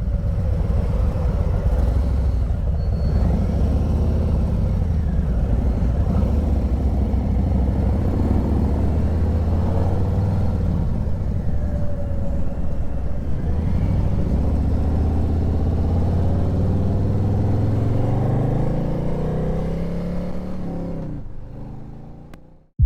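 Motorcycle engine running on the move over a steady rush of wind and road noise, its pitch rising and falling with the throttle; the sound fades out near the end.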